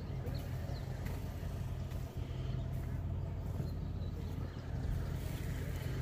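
A motor engine running steadily, a low even hum.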